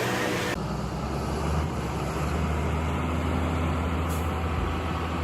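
Heavy machine engine running with a steady low drone. About half a second in, an earlier noisier rushing sound cuts off.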